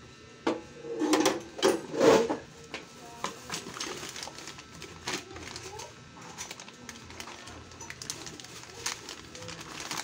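Plastic packaging crinkling and rustling as gas-stove parts are unwrapped and handled, with light clicks and taps throughout. A few louder sounds come about one to two seconds in.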